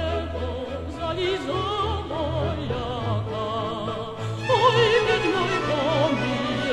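A woman singing in operatic style with a wide vibrato over orchestral accompaniment. A louder phrase comes in a little past halfway.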